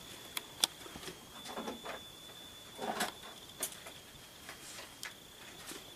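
Scattered light clicks and soft rustling of small hand tools being handled as pliers are picked up, with a faint steady high-pitched whine in the background.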